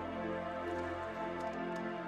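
Background music with long held notes over a steady low bass note.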